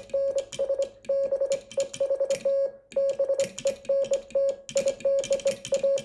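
Morse code sent on a Vibroplex Presentation semi-automatic bug key: a 550 Hz sidetone beeping in dits and dahs, with quick runs of machine-made dits, at about 26 words per minute. Each element is marked by a sharp click of the key.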